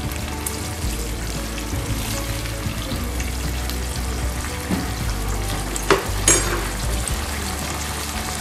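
Egg masala gravy sizzling steadily in a nonstick kadai as a spatula stirs it, with two sharp clicks from the spatula against the pan about six seconds in.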